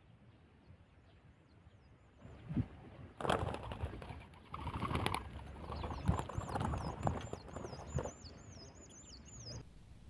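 Doves' wings flapping in a run of loud, noisy flurries starting about three seconds in, as a dove flutters up off the ground. A high, quickly repeated chirping runs through the second half.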